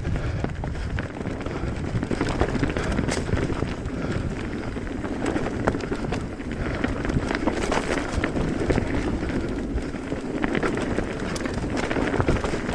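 Electric mountain bike being ridden along a dirt trail: tyres rolling over the ground with many small irregular clicks and rattles from the bike, and wind noise on the microphone.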